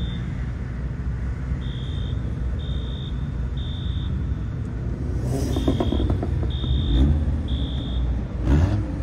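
Low engine and exhaust rumble from modified cars pulling away, with a sharper burst near the end. Over it, a reversing alarm beeps about once a second.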